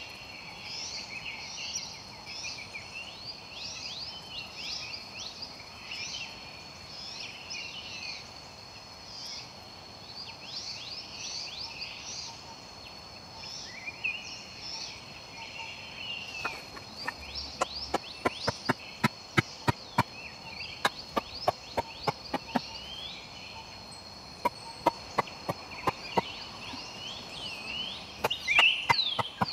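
Forest birds chirping rapidly over steady high insect tones. From about halfway on, a run of sharp wooden knocks and clicks, two or three a second in clusters, from work on bamboo poles; these are the loudest sounds.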